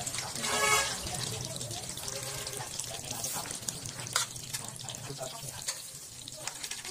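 Dry rice paper wrappers crinkling and rustling as hands lay one out on a wooden cutting board and spread spring-roll filling onto it, with light, irregular crackles and taps.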